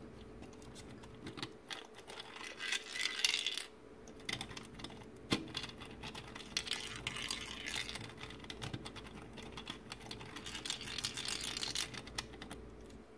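A small metal ball rolling and rattling down the curving tracks of a 3D-printed plastic marble machine, clicking against the plastic as the top knob is turned by hand. The rattling comes in two runs, a short one early and a longer one through the second half.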